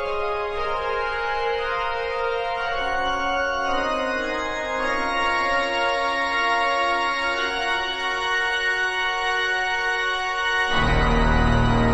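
Background organ music of slow, held chords, with louder, deeper bass notes coming in near the end.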